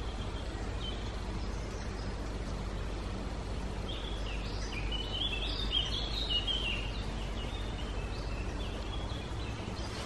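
Grey-headed woodpecker nestlings begging while being fed: a rapid run of short, jittery high-pitched calls, densest in the middle few seconds, over a steady low background rumble.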